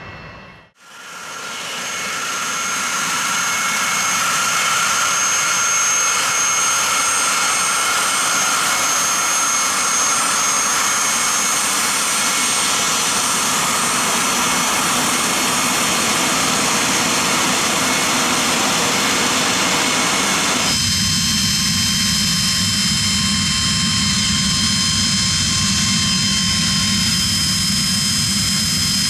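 Pilatus PC-24's twin Williams FJ44-4A turbofan engines running on the ground: a steady jet roar with high-pitched whines on top. It fades in about a second in. About 21 s in, the whine pitches change and a deeper rumble comes in.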